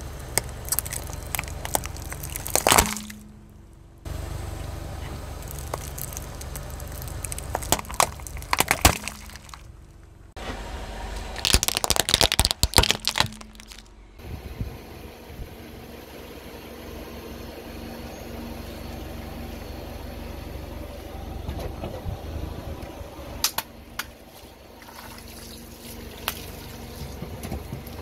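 A car tyre rolls over plastic slime tubs and plastic toys, crushing them with several loud runs of cracking and crunching in the first half. Afterwards the car's engine runs steadily with a few scattered cracks.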